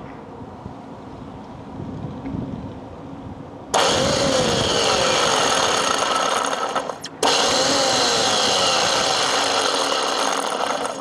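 Max Power CT35 electric bow thruster running in the dry tunnel of a boat out of the water. It makes two loud runs of about three seconds each, with a brief stop between them about seven seconds in.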